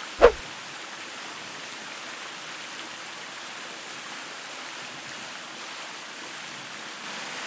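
One short, sharp falling swoosh ending in a low thump, then a steady, even hiss of water-like noise.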